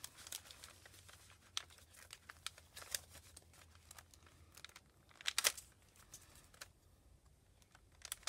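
Crinkled notebook paper and washi tape rustling and crackling as hands press and smooth the tape down along a page edge: scattered small crackles, with a louder rustle about two-thirds of the way through.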